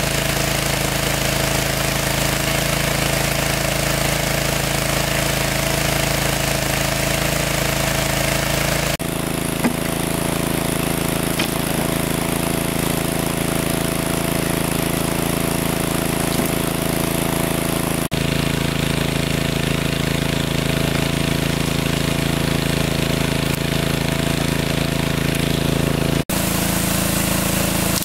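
A small engine running steadily at an even speed. Its tone shifts abruptly three times, about a third, two thirds and nine tenths of the way through.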